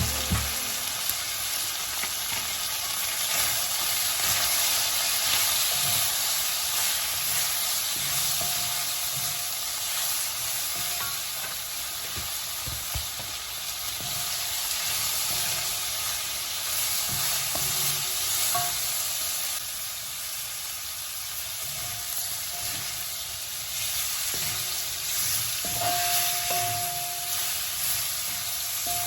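Chicken gizzards sizzling steadily as they fry in oil, with a utensil stirring and scraping them around the pan now and then.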